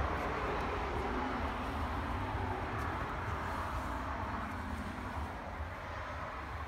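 Steady low rumbling background noise with a hiss, easing off slightly towards the end.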